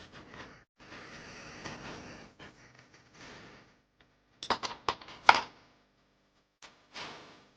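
Hands handling small tools and brake parts: a soft rustling hiss for about a second and a half near the start, then a quick cluster of sharp clicks and taps about halfway through, and one more short rustle near the end.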